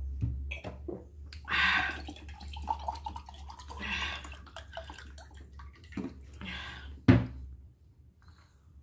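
Water being poured from a plastic bottle into a drinking glass in several splashing pours. A sharp knock comes about seven seconds in.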